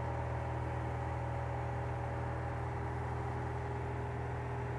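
Cessna 170B's six-cylinder Continental engine and propeller running with a steady, even drone during the takeoff just cleared by the tower.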